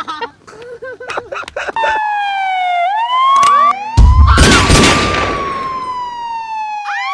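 Siren sound effect, a wailing tone that glides slowly down and then up, starting about two seconds in. A loud hit, the loudest sound, lands about four seconds in, and the siren carries on after it.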